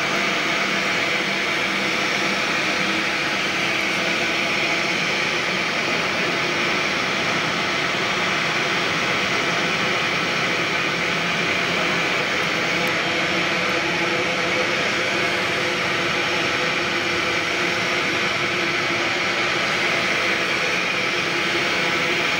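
Steady machinery noise: an even rushing hiss with a high whine and several steady hum tones, unchanging in level.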